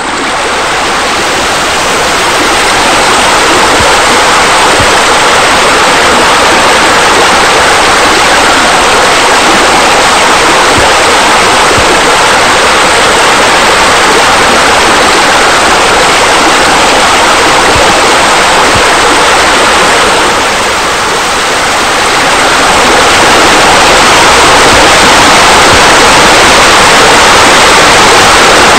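Loud, steady rush of falling water, easing for a moment about twenty seconds in.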